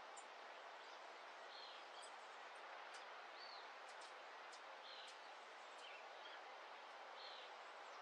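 Faint outdoor dawn ambience: birds giving short chirps every second or so over a steady soft hiss, with a few sharp high ticks.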